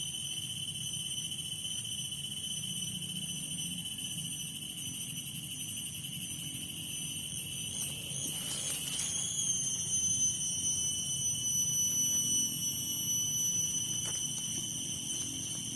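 Cicada song: a steady, shrill high-pitched tone that wavers about eight seconds in, then settles slightly higher and louder.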